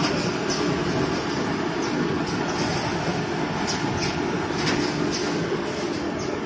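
Automatic box-making machine running: a steady mechanical rumble and hum, with short hissing clicks about once or twice a second as it cycles.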